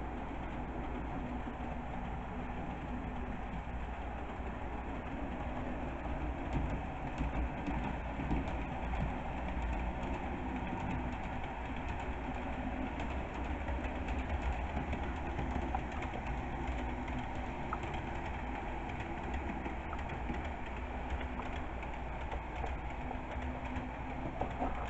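HO scale model freight train running along the layout track: a steady rolling rumble with many small clicks from the wheels passing over the rail joints.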